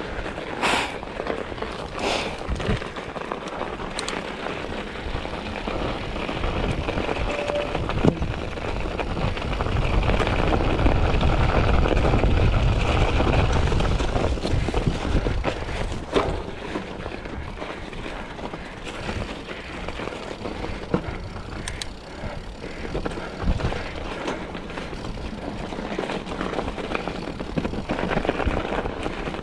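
Mountain bike being ridden on a snowy, muddy singletrack trail: continuous tyre and trail noise with scattered clicks and knocks from the bike over rough ground. A low rumble swells about ten seconds in and eases off a few seconds later.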